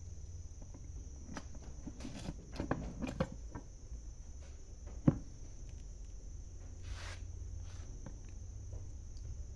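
Scattered metal clicks and knocks as the housing half of a Kubota DC70 hydrostatic transmission (HST) pump is lowered over its cylinder blocks and pressed into place by hand, with one sharp knock about five seconds in. A steady low hum runs underneath.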